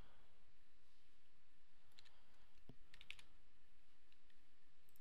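A few sharp computer clicks from mouse buttons and keys, one about two seconds in and a small cluster around three seconds, over a faint steady background hiss.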